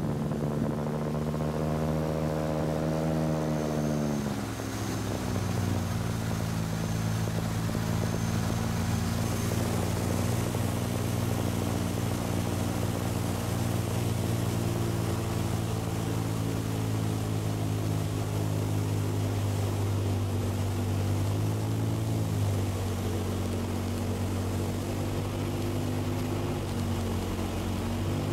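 Light aircraft's engine and propeller droning, heard from inside the cockpit. About four seconds in the pitch drops and stays lower as power is pulled back for the descent. A little after twenty seconds it briefly dips and returns.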